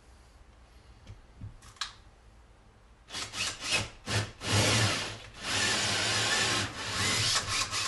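Cordless drill fitted with a hole saw cutting a hole through drywall: a few short bursts about three seconds in, then steady cutting with the motor's hum under the noise of the bit, until it stops near the end.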